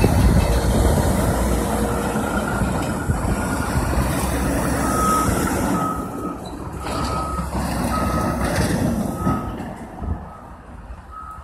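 A backup alarm beeping about once a second, over the low running of a passing tractor-trailer's diesel engine, which fades near the end.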